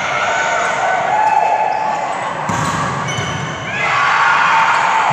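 Volleyball rally in an echoing gym: the ball struck a few times, with players and spectators shouting, the voices getting louder near the end.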